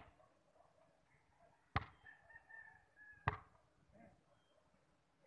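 A basketball bouncing on a concrete court: three sharp bounces about a second and a half apart, the first right at the start. Between the second and third bounces a rooster crows once in the background, a held call of about a second and a half.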